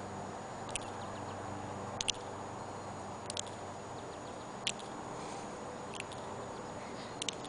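Sharp, high ticks about every 1.3 seconds, some coming as quick doubles, over a steady low background hum; the source of the ticking is unidentified.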